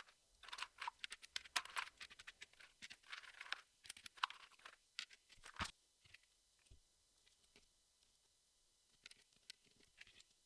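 Jigsaw puzzle pieces being handled: a busy run of light clicks and rustling for the first five or six seconds, then only a few soft ticks near the end.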